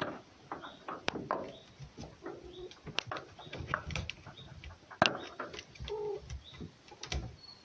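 Short, low cooing calls, a few seconds apart, among scattered clicks and taps.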